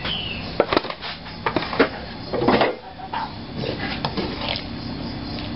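Kitchen tongs clicking and scraping in a frying pan as pieces of pork, carrot and potato are turned. There are a few sharp clicks in the first two seconds and a longer scrape about halfway through.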